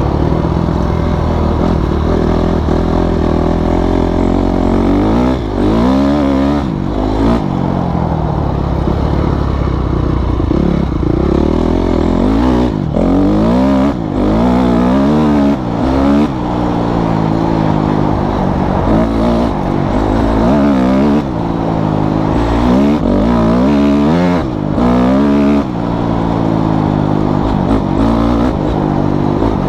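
Honda CRF250R's single-cylinder four-stroke engine under way, its pitch climbing and falling again and again as the rider revs through the gears. The loudness drops briefly several times where the throttle is rolled off.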